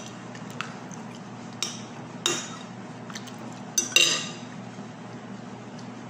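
Dishes clinking as food is picked from a plate by hand: about five sharp clinks against the plate and bowl, the loudest two close together about four seconds in, over a steady low hum.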